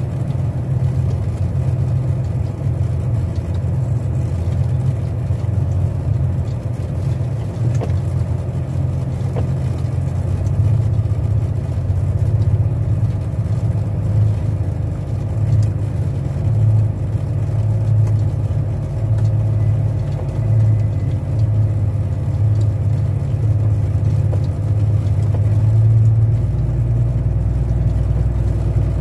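Truck's diesel engine running at low speed, a steady low drone.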